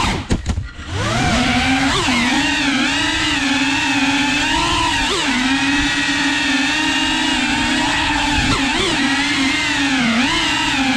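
FPV quadcopter's electric motors and propellers whining as it flies, the pitch rising and falling continually with throttle changes. The sound drops away briefly with a few sharp clicks just after the start, then sweeps back up.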